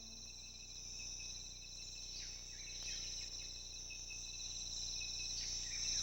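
Insect chorus trilling steadily, with a few short falling chirps about two and three seconds in and again near the end.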